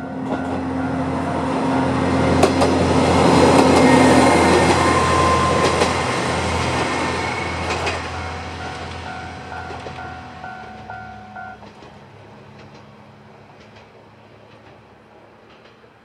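A Kanto Railway KiHa 2400-class diesel railcar passes over the crossing: a rumble with the clack of wheels over rail joints, loudest about four seconds in and then fading away. The crossing's warning bell rings its repeating two-note alarm throughout and stops about eleven seconds in, as the crossing clears.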